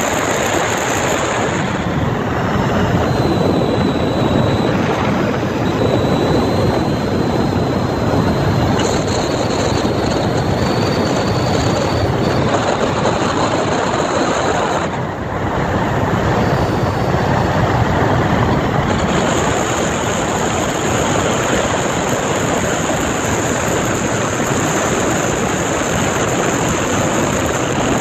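A small boat's motor running steadily underway, a dense, even drone with a brief dip in level about halfway through.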